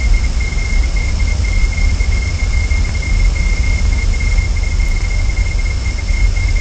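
Steady outdoor nest-camera microphone noise: a low rumble under an even hiss, with a constant high whine.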